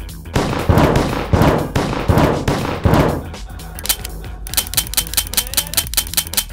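Gunfire sound effects over a music score: about four heavy blasts in the first three seconds, then a fast, even run of sharp shots, about five a second, like a machine gun.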